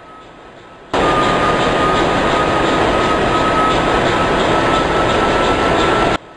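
Loud, steady machinery noise, like a ship's engine room, with a thin whine that rises slightly in pitch. It cuts in suddenly about a second in and stops abruptly near the end.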